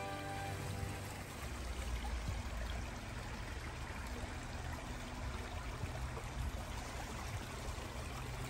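Violin background music fades out about a second in, leaving a small woodland creek trickling and splashing over rocks as a steady rushing.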